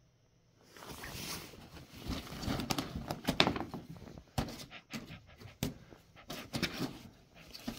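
Rustling and scuffling with light knocks, starting about a second in: a cat pouncing at a string toy and grappling a fabric cat tunnel.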